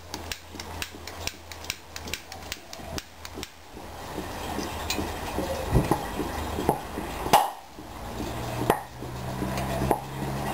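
Hydrogen-oxygen (HHO) gas from a water-electrolysis cell being lit where it bubbles out of a tube in a beaker of water. First comes a quick run of sharp clicks, about three a second, then a steady hiss of the burning gas broken by three louder pops.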